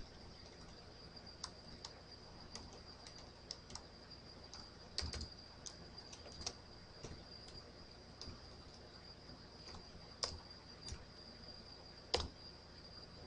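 Computer keyboard keys clicking in scattered, irregular keystrokes with pauses, a few louder strokes among them. A faint steady high-pitched whine runs underneath.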